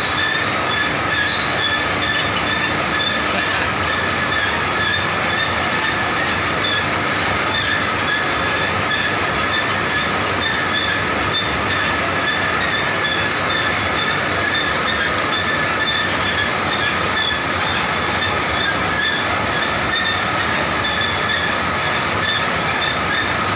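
Rubber-glove production line running: its long chain conveyor carrying the glove formers gives a steady metallic rattle with several high squealing tones held throughout.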